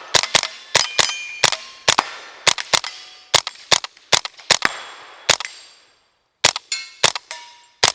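Rapid semi-automatic fire from a Tippmann M4 Micro Elite .22 LR pistol shooting standard-velocity rounds, about two dozen shots at roughly three a second, with a brief pause just before the last quick string. Several hits set hanging steel targets ringing with a short metallic ping.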